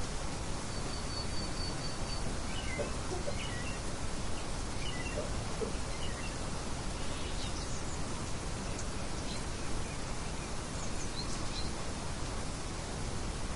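Steady wind noise with faint, scattered bird chirps over it, including a quick run of about six even high notes about a second in.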